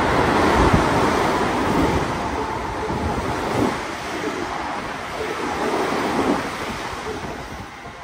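Tokyo Metro 15000 series electric train running through the station at high speed without stopping: a loud rush of air and wheels on rail with a low rumble. The sound fades away as the last cars pass.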